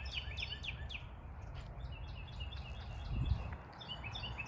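Small birds chirping in rapid series of short notes that sweep downward, then quicker repeated higher notes near the end, over a low rumble of wind and handling noise on the microphone, with a thump about three seconds in.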